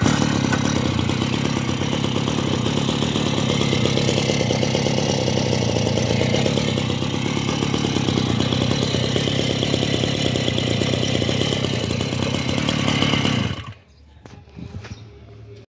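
Small engine of a 1986 Komatsu D3D lawn mower running steadily, then shut off abruptly near the end.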